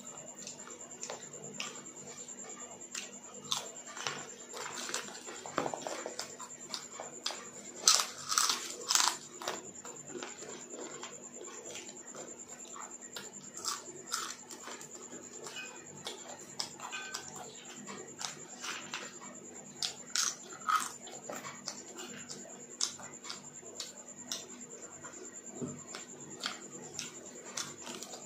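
Close-up eating sounds: a person biting and chewing crisp fried chips, a string of sharp crunches that is loudest about eight to nine seconds in, with softer chewing between. A faint steady high-pitched whine runs underneath.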